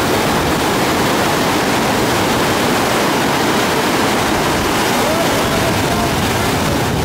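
Loud, steady rushing roar of a flood-swollen river pouring through whitewater rapids.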